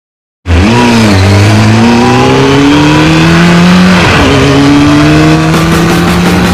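Racing engine sound effect, accelerating hard. It starts suddenly about half a second in, and its pitch climbs steadily. The pitch drops sharply about four seconds in, as at a gear shift, then climbs again.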